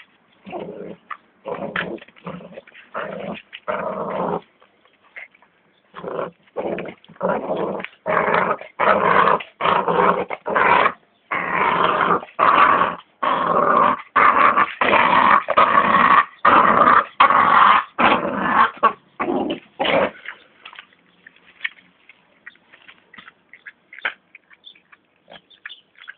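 American Staffordshire Terrier puppy growling in a long run of short, loud growls. They come thickest through the middle and stop about twenty seconds in, leaving only faint clicks.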